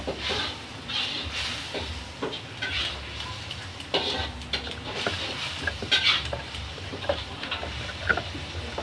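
Irregular clinks, taps and scraping rustles of small hard objects, with the sharpest knocks about four and six seconds in.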